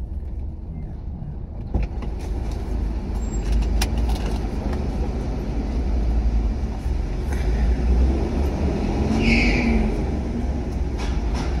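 Car moving slowly, heard from inside the cabin: a steady low engine and road rumble with a few light knocks, and a brief high-pitched sound about nine seconds in.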